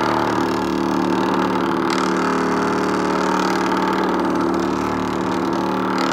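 Loudspeaker driven hard with a steady low buzzing tone, shaking a pan of cornstarch and water on its cone so the mixture rises into wriggling blobs.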